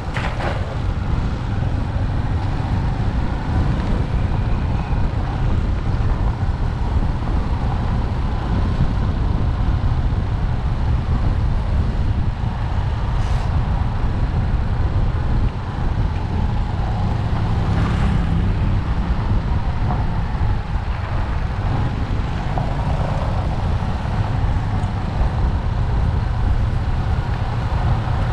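Motorcycle engine running steadily under way, mixed with a constant low rumble of road and wind noise. A few short sharp knocks stand out, near the start, about halfway through and a few seconds later.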